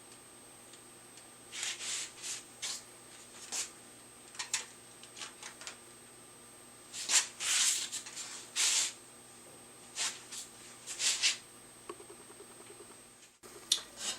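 Steel fan blades sliding and scraping against one another in a series of short, sharp swishes as the riveted fan is swung and worked open and shut. The rivets are tight enough that the blades rub, and the fan cannot open and close freely.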